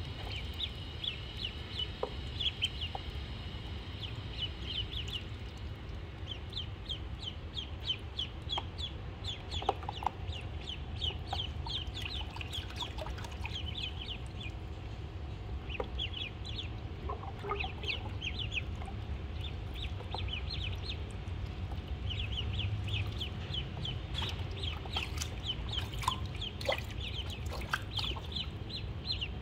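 Ducklings peeping: quick runs of short, high cheeps, with a steady low rumble underneath.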